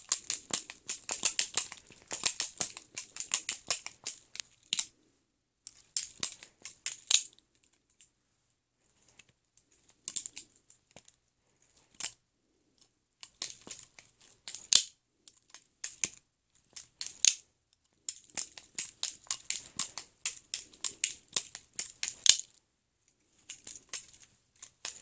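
Balisong butterfly knife being flipped: runs of rapid metal clicks and clacks as the handles swing round and strike each other and the blade, in bursts broken by short pauses.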